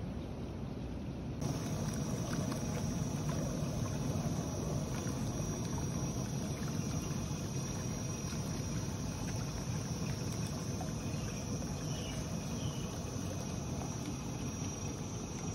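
Jacuzzi pool jets churning and bubbling the water: a steady rushing noise with a thin, steady high tone above it. It begins a little over a second in, after a softer stretch of outdoor background noise.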